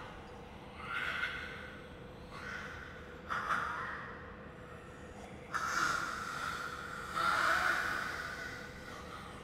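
A woman breathing hard, out of breath, in about five heavy breaths a second or so long each.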